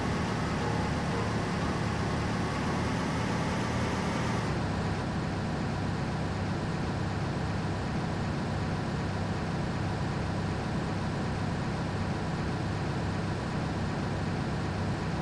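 An 18-wheeler truck on the move: a steady low engine drone mixed with road noise. About four and a half seconds in, the higher hiss drops away and the low drone carries on.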